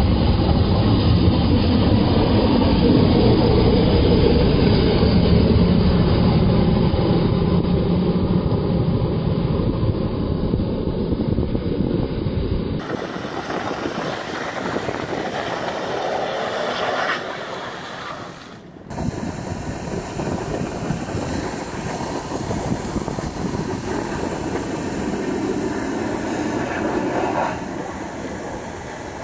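Infiniti Q50S engine running and its tyres spinning on snow as the car drifts, a loud, steady rumble. The sound changes abruptly twice, at about 13 and 19 seconds in, where clips are spliced.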